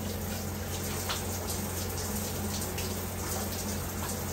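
Shower running: a steady spray of water splashing in a tiled shower stall, with a low steady hum underneath.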